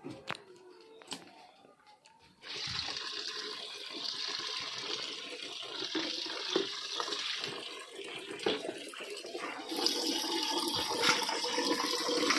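A few faint clicks, then, from about two and a half seconds in, water running steadily in a stream into a plastic bucket, with splashing as hands rinse cut pieces of rohu fish in a steel plate of water. The water gets louder near the end.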